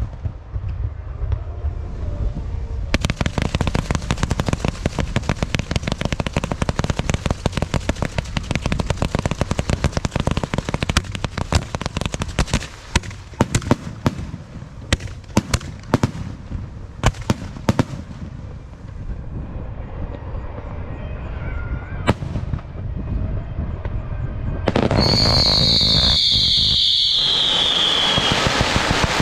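Fireworks going off: a dense, rapid crackling and popping of many small bursts that thins out to scattered pops after about twenty seconds. Near the end a loud, shrill whistle falls slowly in pitch over a few seconds.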